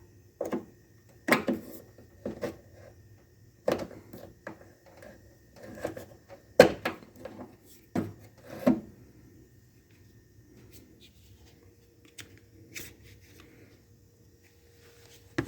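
Plastic trunk-lid trim being pried and pulled free of its clips. A run of sharp clicks and knocks over the first nine seconds or so, then only faint handling.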